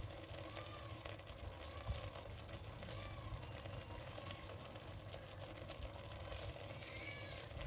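Yard-long beans and pork cooking in a pan, giving a steady simmering sizzle. A cat meows near the end.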